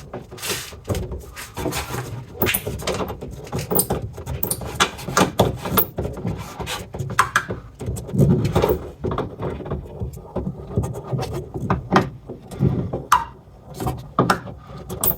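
Irregular clicks and knocks of hand tools, with some low rumbling handling noise, as the 10 mm screws holding a car's rear wiper motor are worked loose.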